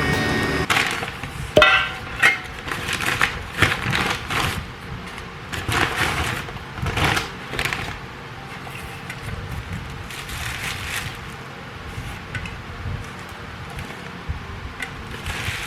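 Kitchen preparation sounds: irregular crinkling, crackling and sharp knocks from packets and utensils being handled. They come thickly for the first several seconds, then thin out to a few scattered clicks.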